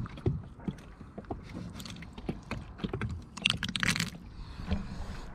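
Wet clicks and taps as an octopus is handled on a boat's plastic hatch lid, over the low slop of water against the hull. A short hissing rush comes about three and a half seconds in.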